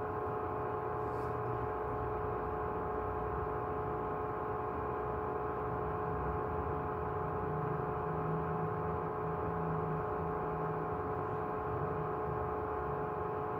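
Steady hum and whir of room equipment such as a projector or computer fan: several steady tones over a low rumble, with no change.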